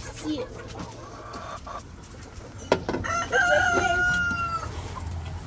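Chickens clucking, then a sharp knock a little under three seconds in, followed by a rooster crowing once in a long, slowly falling call.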